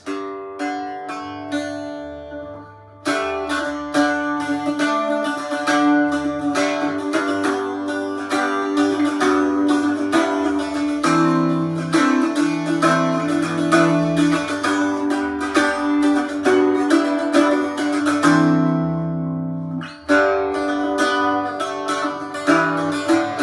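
Roosebeck Irish bouzouki with a maple top and shisham back and sides, tuned G-D-A-D, being picked and strummed in a run of notes and chords over a ringing drone note. Playing pauses briefly about three seconds in and again near the end.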